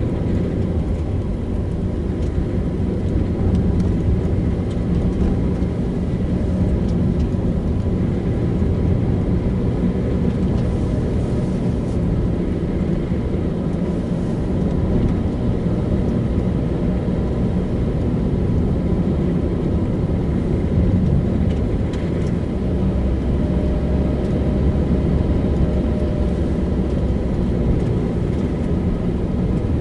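A car driving at a steady pace: a constant low rumble of engine and tyre noise on the road.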